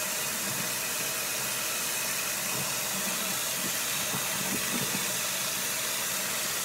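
Steady, even hiss at a constant level, with faint soft sounds of handling underneath.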